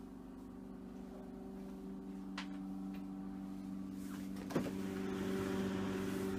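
A steady low hum, with a faint click about two and a half seconds in and a single knock a little after four and a half seconds, after which the hum is slightly louder.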